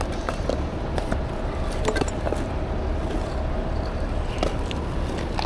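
Heavy tow truck's diesel engine running steadily, with scattered light knocks and clinks over it.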